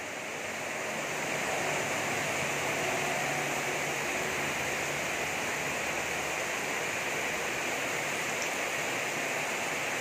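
Heavy tropical downpour: dense rain pouring onto a flooded street and tiled roofs, a steady hiss that swells slightly in the first second or two and then holds.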